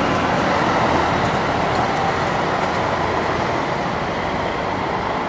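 Tram rolling past and moving away along street track: a steady rumble of wheels on rails that slowly fades.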